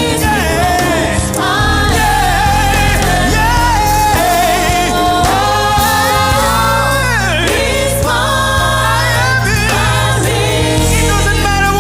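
Live gospel praise music: a choir and worship singers sing over a steady band with bass and held keyboard chords.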